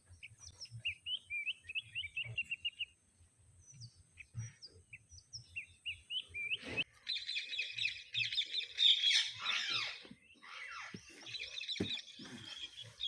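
Indian ringneck parakeets chirping: a quick run of short chirps about a second in, then denser, louder chattering from about seven seconds on.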